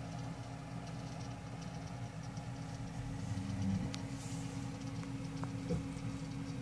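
Steady low mechanical hum, with a few faint clicks and ticks in the second half.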